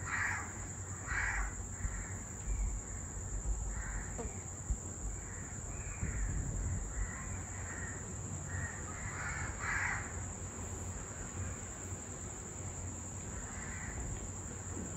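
Birds calling in the background: a string of short calls roughly every half second, which stop for a few seconds near the end, over a steady low hum.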